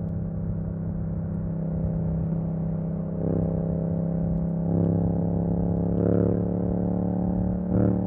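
Yamaha MT-07's parallel-twin engine running through an Akrapovič exhaust with the dB killer removed, holding steady revs, with short pushes of throttle that make it louder about three, five and six seconds in and again just before the end.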